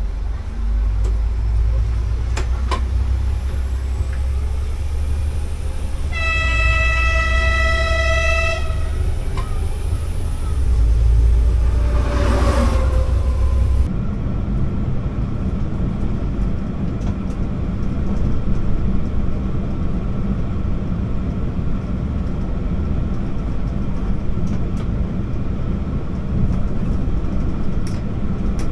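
Regional train heard from inside the driver's cab, running along the track with a steady low rumble. About six seconds in, the train's horn sounds one steady tone for about two and a half seconds. A few seconds later a louder sound sweeps down in pitch, and after that the running noise becomes a steadier, fuller rumble at speed.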